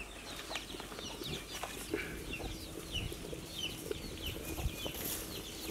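Birds calling: many short, high chirps, repeated in quick succession.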